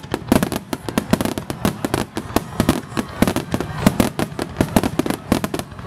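Fireworks finale barrage: aerial shells bursting in a dense, irregular run of bangs, many a second and overlapping.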